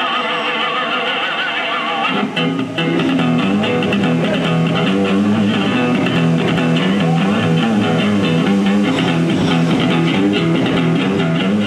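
Electric guitar music with a wavering lead line; a moving low bass line joins about two seconds in and the music runs on at a steady level.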